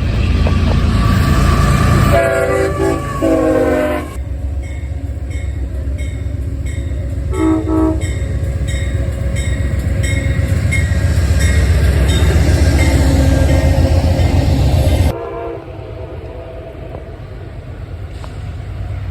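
Train horn sounding over the heavy rumble of a passing train: a blast of about two seconds a couple of seconds in, then a short blast about seven seconds in. The rumble drops off suddenly about fifteen seconds in, leaving quieter rail noise.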